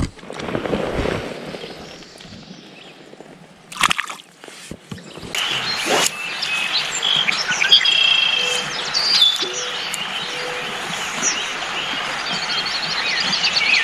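A short rush of water as a small trout is let go at the start, a few sharp clicks, then from about five seconds in, a chorus of songbirds singing and chirping steadily.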